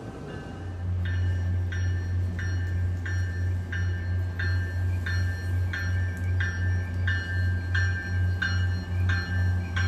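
MBTA commuter train's warning bell ringing steadily, about three strikes every two seconds, as the train pulls into the platform, over a low steady hum from the train.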